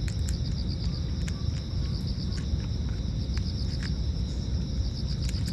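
Crickets chirping in a steady, fast-pulsing high trill, over a low rumble of wind on the microphone, with a few faint scattered clicks.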